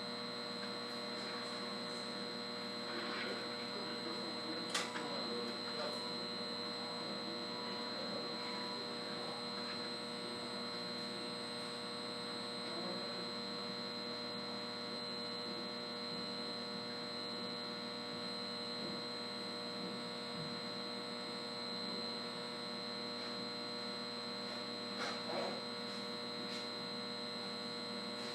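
Steady electrical hum from switchgear and transfer-switch equipment, with several steady whining tones layered over it, high and low. A single sharp click about five seconds in.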